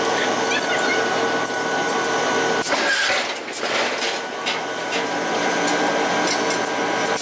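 Heavy factory machinery running with a steady droning hum, with a few sharp metallic clanks around the middle.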